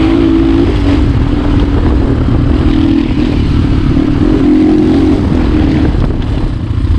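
Motorcycle engine running under way on a ride, its note rising and falling, over a steady loud rumble.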